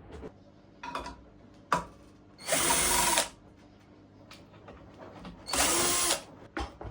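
Power drill-driver running twice in short bursts, each under a second, unscrewing fasteners to open the scooter's controller unit. A couple of light clicks and knocks come before the first run.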